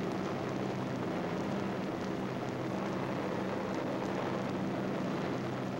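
Steady drone of propeller aircraft engines: an even rushing noise over a low hum.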